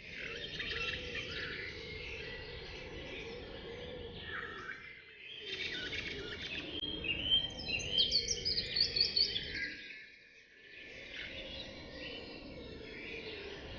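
Several songbirds chirping and singing in a forest chorus, with a quick run of rising notes about halfway through, over a steady low background noise.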